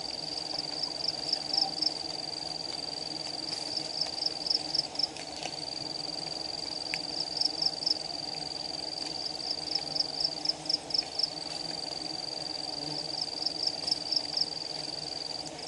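A steady, high-pitched insect call, broken every few seconds by a run of quick pulses. Under it runs a low steady hum from a colony of giant honey bees (Apis dorsata) at their open comb.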